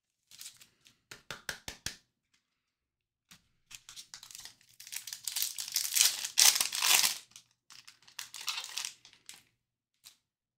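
A trading-card pack wrapper being torn open and crinkled by hand. A run of short clicks comes in the first two seconds, then a long stretch of crinkling and tearing, loudest in the middle, with one last click near the end.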